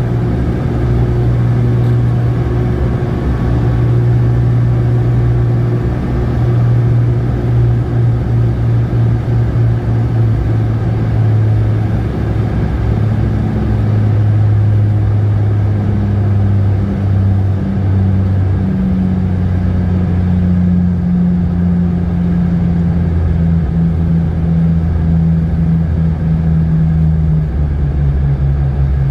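Cabin noise of a Cessna 402C's twin piston engines and propellers at high power during takeoff and climb, a loud, steady drone. Partway through, the pitch of the drone shifts as the power setting changes.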